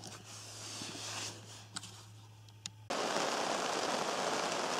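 Handling noise with a couple of sharp clicks over a low hum, then about three seconds in, rain drumming steadily on a canvas tent cuts in, much louder.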